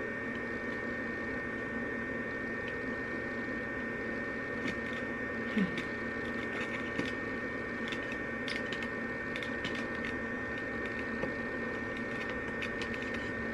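Steady electrical hum with a thin high whine on top, from a running appliance, with a few faint light ticks partway through.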